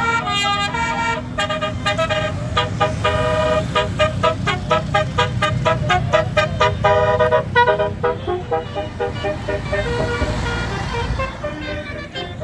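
Bus 'basuri' telolet musical air horn playing a quick tune of short notes that change pitch, over the low rumble of the bus's engine. After about eight seconds the horn notes thin out and the engine rumble grows louder.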